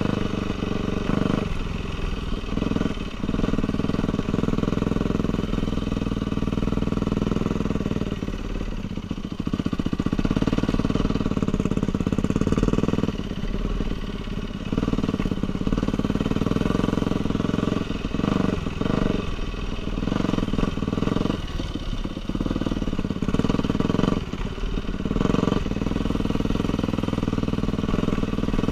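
Dirt bike engine running, its sound dropping and picking up again every few seconds as the throttle is closed and reopened.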